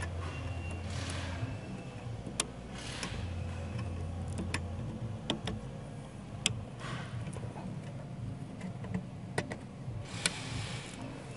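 Wiring-harness plugs being handled and pushed into the sockets of a car audio amplifier: scattered sharp plastic clicks at irregular intervals with soft rustling of wires and gloves. A faint low hum runs under the first half.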